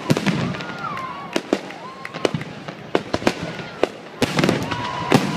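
Aerial firework shells bursting overhead in an irregular series of sharp bangs.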